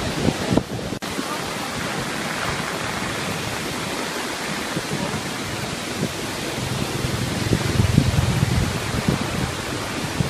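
Muddy floodwater of a swollen river rushing past in a steady, loud wash of noise, mixed with heavy rain. Wind gusts buffet the microphone with low rumbles about seven to nine seconds in.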